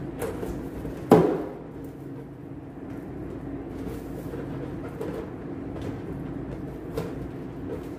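Inflated latex balloon being handled and knotted at the neck, with one sharp snap about a second in and a smaller tick near the end, over a steady low hum.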